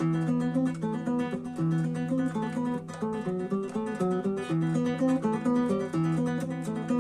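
Valencia CG30 R+ nylon-string classical guitar with Hannabach HT500 strings, played solo: a flowing pattern of single plucked notes over low bass notes that ring on and are renewed every second or two.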